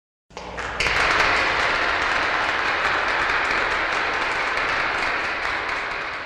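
Applause: dense, steady clapping that comes in abruptly, swells within the first second and slowly fades out near the end.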